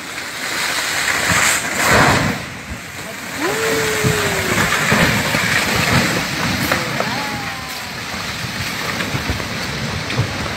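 Rushing muddy floodwater of a debris flow coming down a mountainside, a steady loud roar of water, with people calling out over it a few times.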